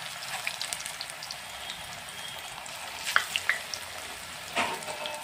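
Chicken kabab patties frying in hot refined oil in a pan: a steady sizzle with scattered crackles and pops, a few louder ones about three seconds in.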